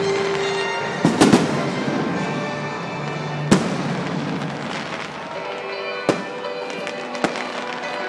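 Aerial fireworks bursting: sharp bangs, a quick cluster of them about a second in and single booms around the middle and near the end, over a continuous crackle of glittering stars, with music playing underneath.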